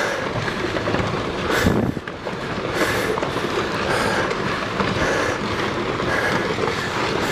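Rockfall on a volcano slope: rocks tumbling and clattering downhill in a continuous rumble, with sharp knocks of stones striking, the loudest about one and a half seconds in.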